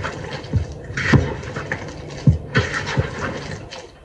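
A hand kneading and mixing cookie dough in a plastic bowl: irregular scratchy rubbing and scraping, with a few dull knocks.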